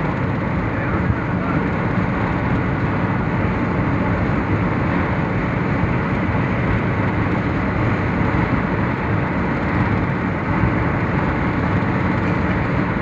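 Steady road and engine noise heard inside the cabin of a vehicle cruising on a motorway, an even rumble and hiss with no change in pace.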